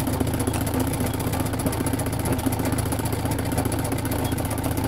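Treadle-driven straight-stitch sewing machine running steadily, its needle going up and down in a fast, even clatter while filling in an embroidered petal with close satin stitches.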